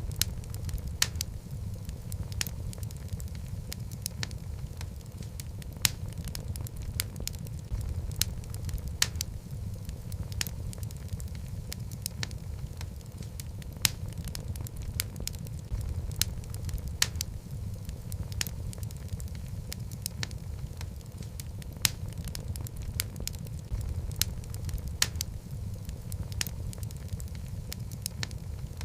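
Wood fire burning in a fireplace: a steady low rumble of the flames with frequent sharp, irregular crackles and pops from the logs.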